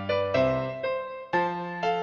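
Background music on electric piano, chords struck about twice a second and each left to fade.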